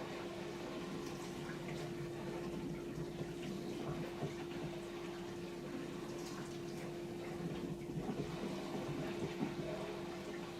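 Bosch SKS60E02GB compact dishwasher running a wash cycle: a steady pump hum under the sound of water spraying and splashing inside the tub.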